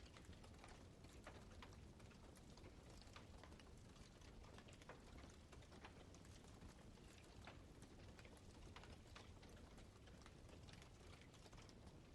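Campfire crackling faintly: frequent small, irregular pops and snaps from the burning wood over a low steady rumble.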